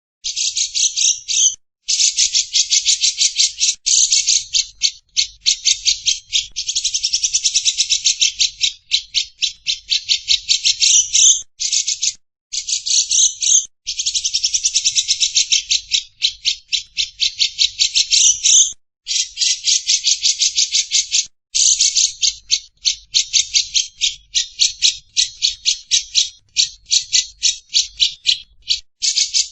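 A bird calling in long runs of very rapid, dry, high-pitched rattling trills, broken by short pauses every few seconds, starting right at the beginning. It is a recorded call played as masteran, bird-song training material.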